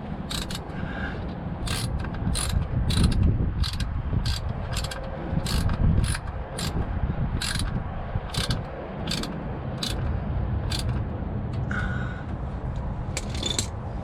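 Hand ratchet clicking in short, irregular strokes, about one or two a second, as a 3/8-inch ratchet works a transfer case plug, over a steady low rumble.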